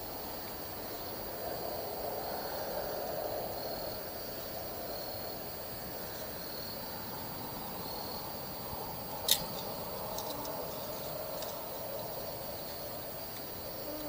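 Night ambience: a steady chorus of calling animals, with a faint high insect tone that pulses about once a second. A single sharp click comes about nine seconds in.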